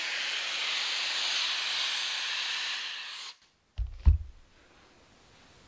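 Shark FlexStyle air styler blowing through its round brush attachment: a steady airflow hiss that cuts off about three seconds in. Two low thumps follow just after.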